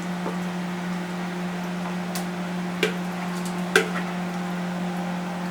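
A utensil knocking against a bowl a few times while chicken is added to rice, with two sharper knocks about three and four seconds in, over a steady low hum.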